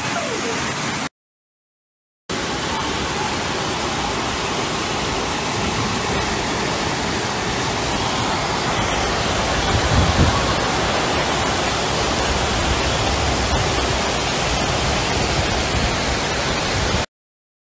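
Floodwater rushing down a street in heavy rain: a steady, dense hiss. It breaks off to silence for about a second near the start and again near the end. A brief low rumble swells about ten seconds in.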